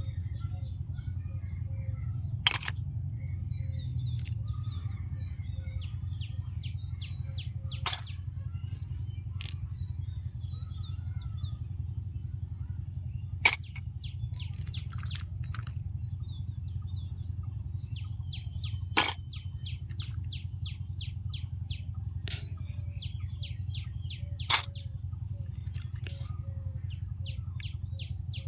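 Birds chirping over a steady low hum, with a sharp click repeating at even intervals, about every five and a half seconds.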